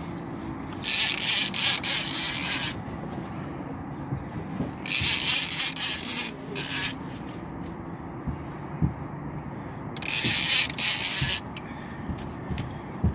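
Fishing reel whirring in three bursts of a second or two each while a hooked sturgeon is being fought on a bent rod.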